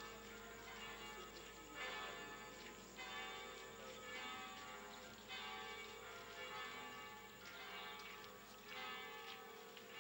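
Church bells ringing, a new stroke about every second or so, each note left to ring on into the next.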